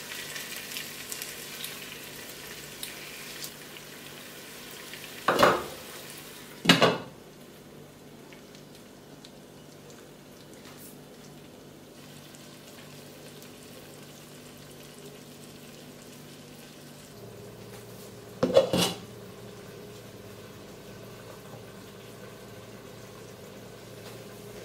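Chicken and lemon peel frying in a pot, a light sizzle that fades after the first few seconds. Three loud clanks of pots and pans, about five seconds in, about seven seconds in and near the end, over a faint steady hum.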